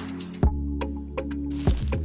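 Background music with a deep held bass, and a handful of short light clicks or knocks over it.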